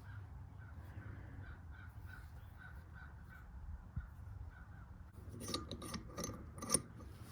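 Faint, quick, evenly spaced chirps, about four a second, for the first five seconds. Then a handful of light, sharp metallic clicks and clacks as parts of an AK-pattern rifle are handled, the loudest near the end.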